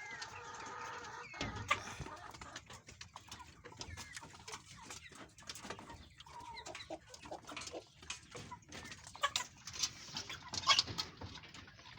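A flock of 11-week-old kienyeji chickens clucking and chirping, with many quick light taps and clicks among the calls.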